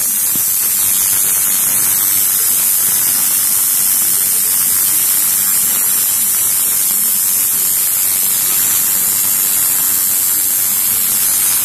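Electric tattoo machine running continuously against the skin: a steady buzzing hum under a loud hiss.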